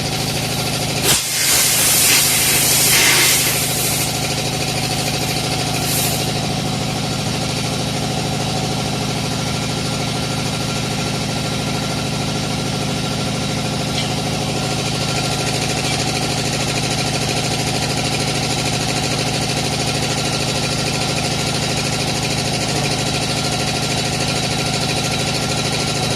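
Steady machine hum throughout. About a second in, a loud hiss of compressed air lasts about three seconds as air is blown during the tyre fitting on the tyre changer. A brief second hiss follows a few seconds later.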